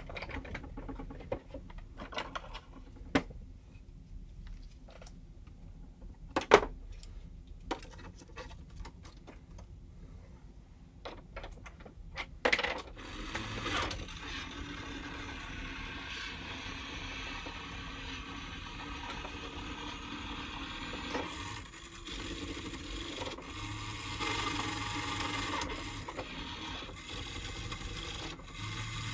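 Mini claw machine: scattered sharp clicks and knocks, then from about halfway its small motor runs steadily with a low hum as the claw moves and lowers into the prize pile.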